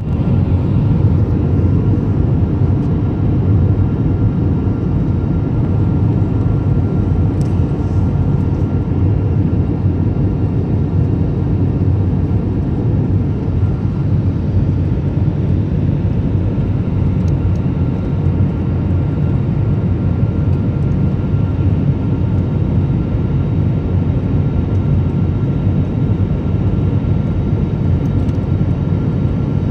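Passenger airliner cabin noise in flight: a steady, loud, low rush of engine and airflow noise, with a faint steady high tone running through it.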